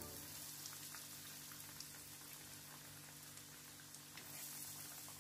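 Faint sizzling of breaded chicken nuggets shallow-frying in bubbling oil in a pan, with a few scattered small crackles.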